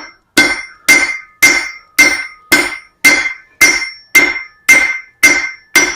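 Hand hammer striking hot iron bar stock over a hardy chisel set in the anvil, cutting almost through the bar. The blows come in a steady rhythm of about two a second, eleven in all, each with a short bright metallic ring.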